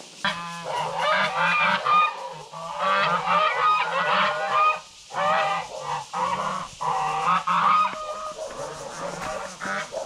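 A group of geese honking, many loud calls overlapping, broken by a couple of short pauses.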